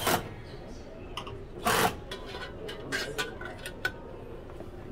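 Handling noise of PC assembly: a brief rustle, then a few light clicks and taps of parts and cables against the metal PC case.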